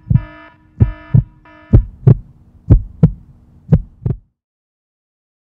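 Heartbeat sound effect: slow paired lub-dub thumps about once a second over a steady droning tone. The drone fades out about two seconds in, and the heartbeat stops abruptly about four seconds in.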